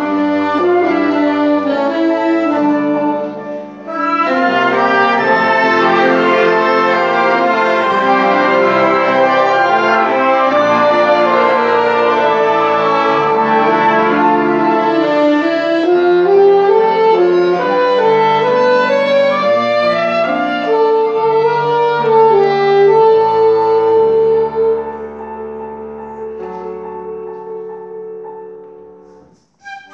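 Live ensemble music on wind instruments, brass and reeds, with a short break about four seconds in; near the end the playing thins to a quieter held passage that dies away.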